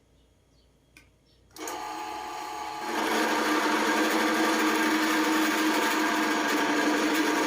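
A workshop machine's electric motor switches on about one and a half seconds in and runs steadily with a whine. It steps up louder about three seconds in.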